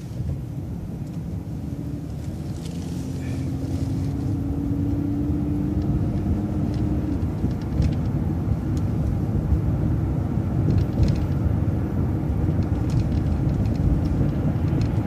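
City transit bus running through a turn and pulling away: a steady low engine rumble that grows gradually louder as it accelerates, with a faint whine rising slightly in pitch during the first several seconds.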